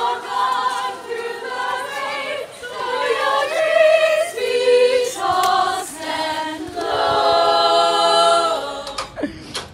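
A group of drama students singing together a cappella, a serenade by several voices without instruments. Near the end they hold a long chord, then the singing breaks off.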